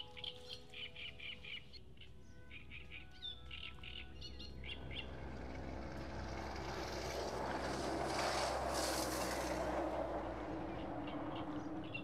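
Small birds chirping in quick runs of notes, then a broad rush of noise that swells to its loudest about nine seconds in and eases off, with the chirping coming back near the end.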